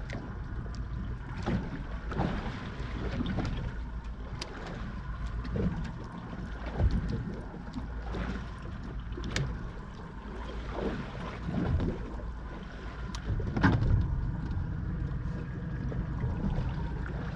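Small boat on the water: a steady low wash of water and wind, broken by scattered short knocks and clicks, with a few louder swells.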